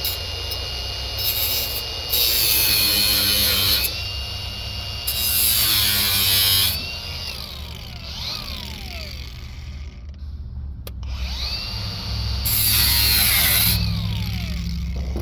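Power drill running on the air conditioner's metal: the motor whines steadily, then bites in with three loud grinding bursts, winding down with a falling whine after the trigger is let go.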